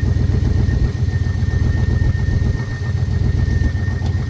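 Carbureted engine of an old square-body dump truck idling steadily, with a thin steady high whine running under the rumble. It is running on its own after a stuck carburetor float was freed and the carburetor top was refitted with a new gasket.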